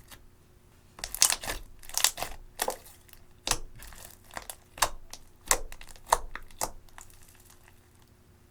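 Clear slime mixed with eyeshadow being squeezed and pressed by hand, giving a run of sharp crackling pops from about a second in that stop a little before the end.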